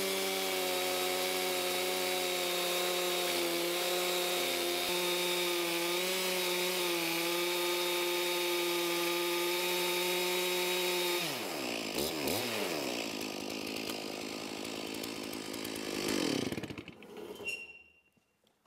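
Stihl two-stroke chainsaw in an Alaskan chainsaw mill running steadily at full throttle, ripping lengthwise through a Douglas fir burl. About eleven seconds in the throttle comes off and the engine speed falls and wavers, and the sound dies away near the end as the cut finishes.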